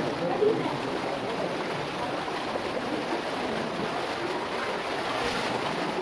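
Steady rushing of a stream flowing through a narrow rock gorge, with no single event standing out.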